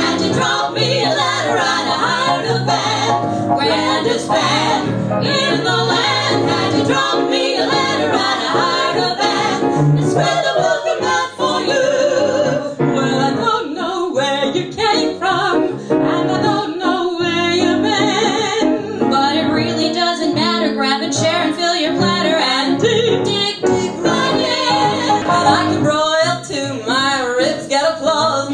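Female vocal trio singing together with piano accompaniment.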